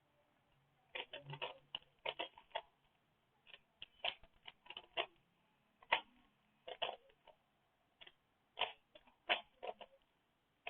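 Rubik's Cube being turned quickly during a speed solve: bursts of rapid plastic clicking as the layers snap round, with short pauses between the bursts.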